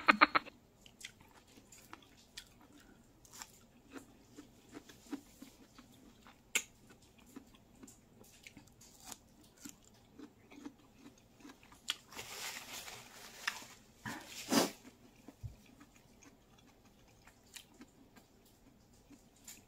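Close-up eating of ripe mango pieces: soft chewing, biting and wet mouth clicks scattered throughout, with a louder, noisier stretch of chewing and sucking about two-thirds of the way through.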